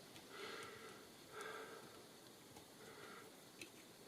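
Near silence: three faint, soft breaths and a light click near the end.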